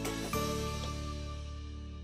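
Closing background music: a last chord struck about a third of a second in, held and slowly fading out.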